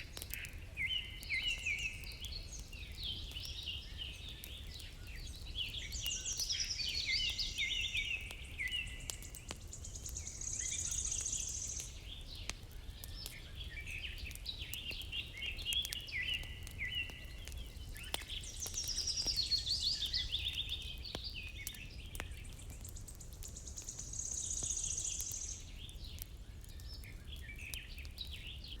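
Songbirds singing and chirping in a nature-sounds ambience, with similar song phrases coming back about every twelve seconds. Under them run a steady low rumble and faint scattered clicks.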